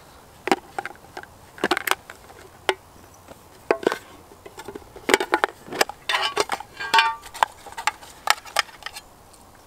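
A small metal camping mess tin being unpacked and opened by hand: a string of separate clinks and knocks as its lid and parts are handled and set down, with a short ringing metallic clink about seven seconds in.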